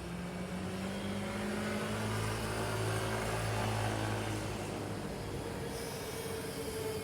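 A road vehicle passing by in city street ambience: its low engine hum swells to a peak mid-way and then fades away. A high hiss joins near the end.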